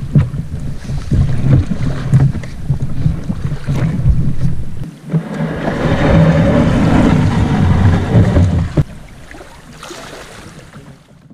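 Loaded canoe's hull scraping and grinding over wet granite as it is hauled up out of the water, with knocks and a steady low rumble. The scraping is heaviest for about three seconds past the middle and eases off near the end.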